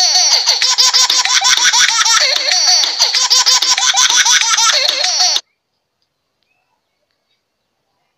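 Baby laughter ringtone: a baby giggling and laughing in quick repeated bursts that cut off suddenly about five seconds in.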